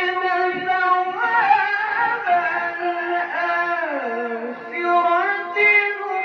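Male qari reciting the Quran in melodic tilawah style into a handheld microphone. Long held notes with ornamented turns; a phrase sweeps down to a low note about four seconds in, then climbs back up.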